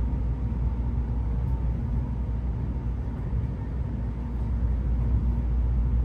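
Tokaido Shinkansen train running, heard inside the passenger cabin as a steady, low-pitched running noise.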